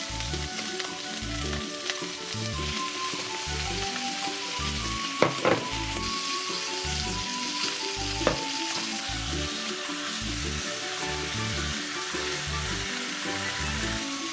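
Thin flour-dusted pork slices sizzling steadily in hot oil in a nonstick frying pan as more slices are laid in, with a few sharp clicks near the middle.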